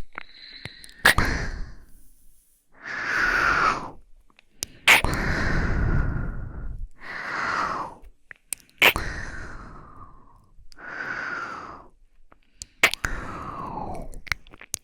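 A woman's breathy exhales and sighs close to the microphone, about seven in a row, each one to two seconds long, several starting with a sharp mouth click.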